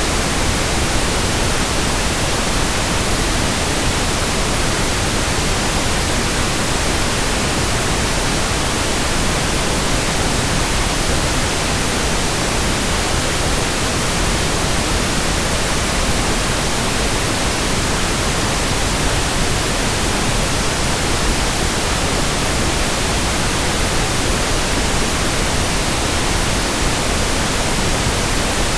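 Steady, unchanging synthesized pink noise: an even hiss across the whole range with no breaks or variation.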